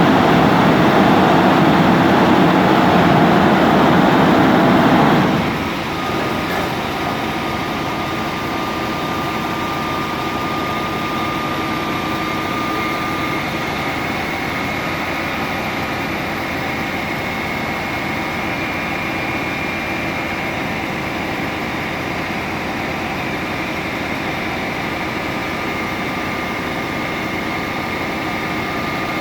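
A heavy engine running hard, then easing down about five seconds in to a steady idle, with a thin high whine over it.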